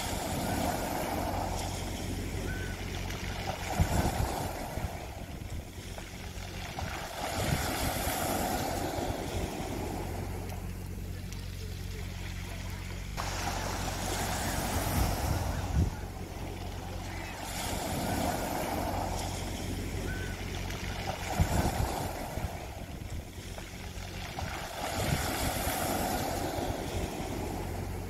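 Small sea waves breaking on a pebble beach, each one swelling, washing over the stones and falling back every three to four seconds, with an occasional sharp knock as a wave hits the pebbles. A steady low hum runs underneath.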